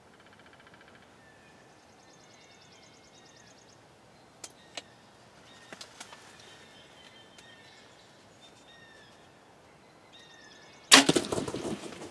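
Faint bird calls and trills with a few light clicks, then about a second before the end a sudden loud crack of a bow being shot, trailing off over about a second.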